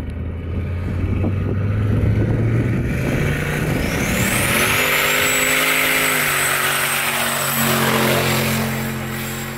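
Pickup truck on screw-studded tires accelerating hard across glare ice: the engine note climbs steadily, dips briefly about six seconds in as it shifts, then holds higher as the truck passes. A thin high whine rises alongside it about four seconds in and then holds.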